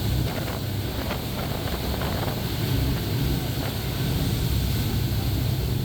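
Tour boat's engine running steadily on the lake, a low hum under wind and water noise on the microphone.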